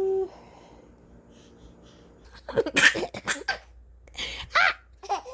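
Baby laughing in short, breathy bursts. The laughter starts after a quiet pause of about two seconds, in several quick runs.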